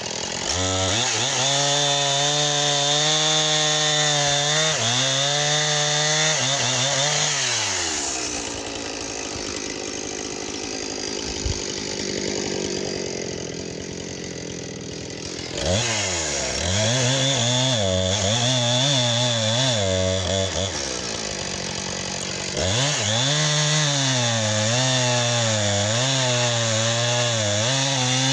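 Husqvarna 460 Rancher two-stroke chainsaw cutting through a log at high revs, its pitch sagging and recovering as the chain bites. About eight seconds in it drops back and runs quieter for about seven seconds, with one sharp click, then revs up and cuts again, easing off once more briefly near the three-quarter mark.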